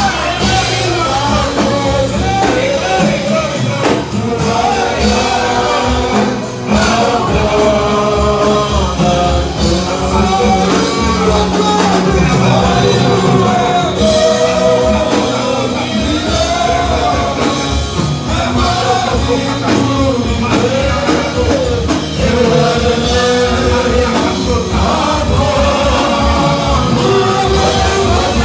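Praise music: voices singing a melody over a full band accompaniment with a steady bass.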